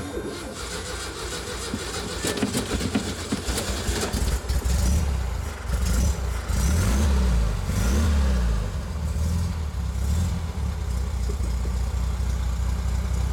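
Air-cooled 1600 cc Volkswagen flat-four engine started with a push-button starter. It cranks for a few seconds, catches about four seconds in, is revved up and down a few times, then settles into a steady idle.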